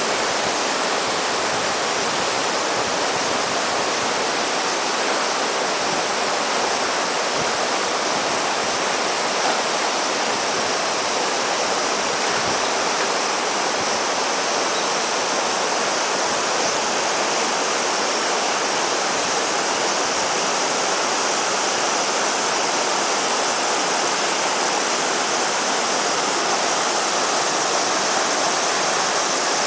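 River water rushing steadily, a continuous even roar with no breaks.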